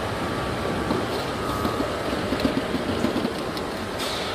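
Roller shutter door rolling up: a steady rattling rumble from the door mechanism, with faint clicks.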